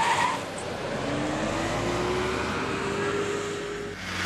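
Black taxi cab pulling away fast: a brief tyre squeal, then the engine accelerating, its pitch rising steadily for about three seconds before it stops near the end.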